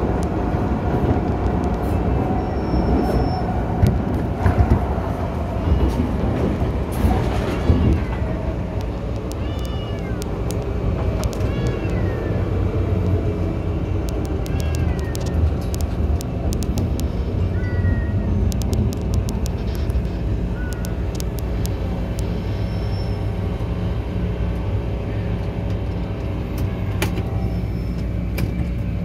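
Interior of an MTR M-Train electric multiple unit running on the Kwun Tong Line and then pulling into a station: steady traction motor and wheel-on-rail noise with held tones. Short high squeals come every few seconds, with bursts of clicking.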